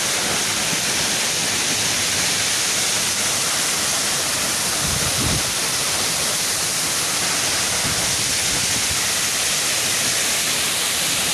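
Steady rushing of a tall waterfall, about 30 m high, plunging into its pool: an even, dense hiss from deep to high at a constant level.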